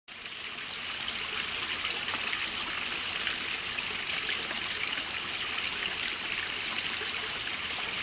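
A steady rush of flowing stream water. It fades in over about the first second, then holds even.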